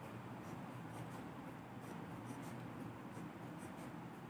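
Pen scratching faintly on workbook paper in short, repeated strokes as it draws boxes around pairs of circles.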